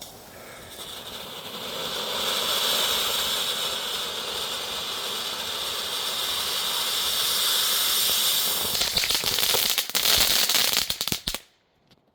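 "Strobe Shower" ground-fountain firework hissing steadily as it sprays, building up over the first couple of seconds. Near the end it breaks into a rapid crackle of strobe pops, then cuts off suddenly.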